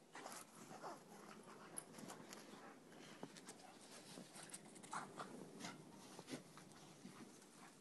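Faint scattered scuffles and small clicks of dogs moving about and sniffing in snow, with a couple of brief faint squeaks, one about a second in and one about five seconds in.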